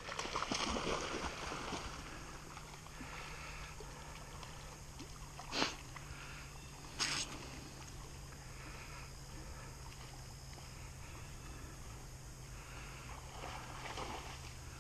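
A dog splashing as it wades into a pond, loudest in the first two seconds, then faint water sounds as it swims out. Two short sharp knocks come in the middle, about a second and a half apart.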